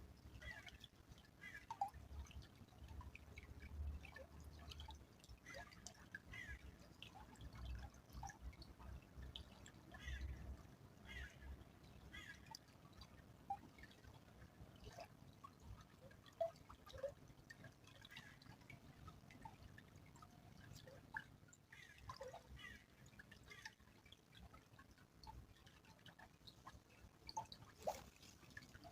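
Small stream trickling faintly, with many irregular little drips and plops of water.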